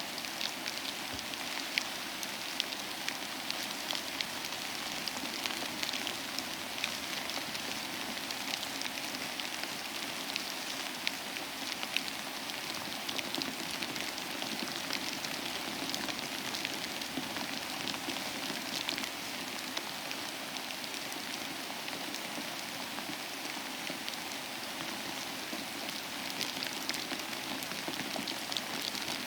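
Steady rain falling, a continuous hiss with many close, separate drops ticking on a hard surface.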